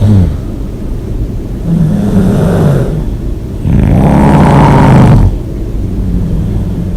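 A person snoring loudly: two snores, the second starting about three and a half seconds in, longer and louder than the first.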